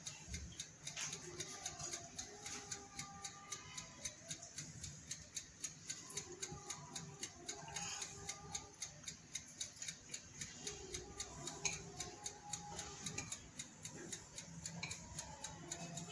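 Faint, even ticking, about four ticks a second.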